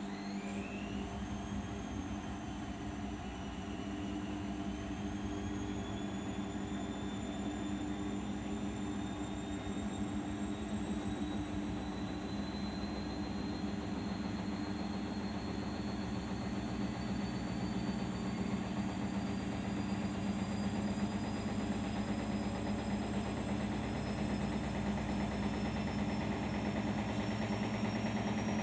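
Arçelik 5083 washing machine's drum motor speeding up during the final spin toward 800 rpm. A high whine dips slightly a few seconds in, then climbs steadily in pitch over a low steady hum, growing a little louder.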